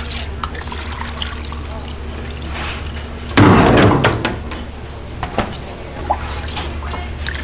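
Liquid being poured and splashing, with one loud pour about halfway through that tapers off within a second, over a steady low hum and a few light knocks.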